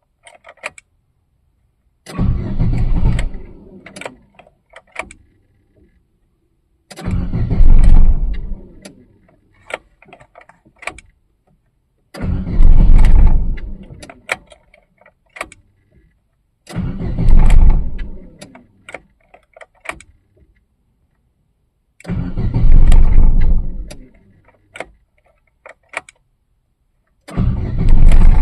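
A 2013 Chevrolet Aveo's engine being cranked on a cold morning in five short attempts of about two seconds each, with the key clicking between tries. On the sixth try, near the end, it catches and keeps running. It is a hard cold start.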